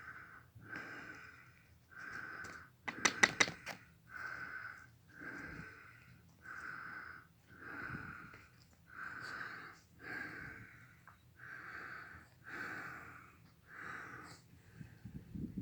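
Hand drill spindle grinding in a dead ivy hearth board, a rasping squeal in regular strokes a little more than once a second as the spindle is spun back and forth, working toward an ember. A quick cluster of sharp clicks about three seconds in is the loudest sound.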